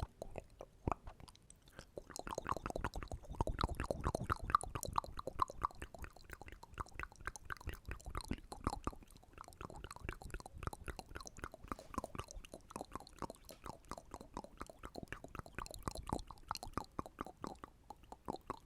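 ASMR mouth sounds: rapid wet clicks, pops and smacking close to the microphone, in a dense run that is busiest in the first half.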